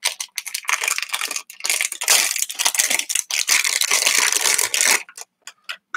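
Foil blind-bag pouch crinkling and crackling as it is handled and opened by hand. The crinkling stops about five seconds in, leaving a few short crackles.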